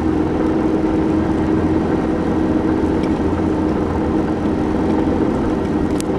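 Pickup truck driving in four-wheel drive through slush, heard from inside the cab: a steady engine hum with tyre and road noise, and a brief click near the end.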